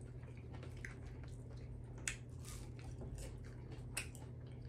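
Close-up chewing of French fries, with small wet mouth clicks and two sharper clicks, about two seconds in and near the end, over a steady low hum.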